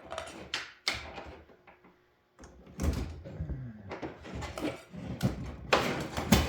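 Clicks, knocks and rustling handling sounds, irregular and sudden, as a multimeter is set up to measure the voltage of a 12-volt power supply.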